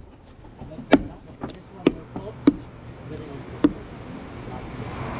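Claw hammer striking nails into a plywood patch on a wooden boat hull: about five sharp, unevenly spaced blows.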